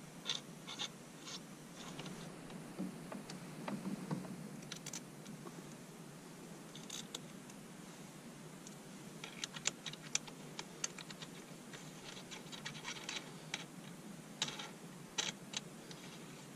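Wiring being connected to a deep-cycle battery's terminals by hand: faint scattered clicks and scratches of the connectors and cable being handled, bunched a little past the middle and again near the end.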